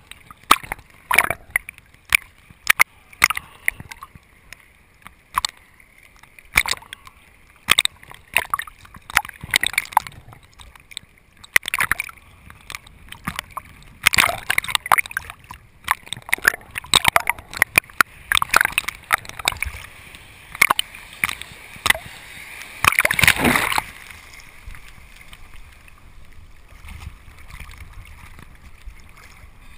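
Sea water splashing and sloshing against a GoPro's waterproof housing as the camera bobs in and out of the surface, in irregular splashes with the longest and loudest about 23 seconds in, then calmer.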